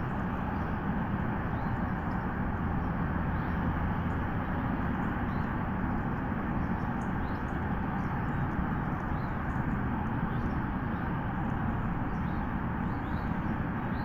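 Steady rushing background noise on an outdoor nest-camera microphone, with faint, brief high chirps of small birds now and then.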